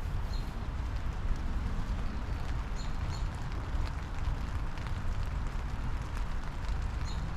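Steady spring rain shower falling on a lilac bush and the yard: a dense patter with many separate drop ticks over a low rumble. A backyard bird gives a few short, high chirps near the start, around three seconds in, and near the end.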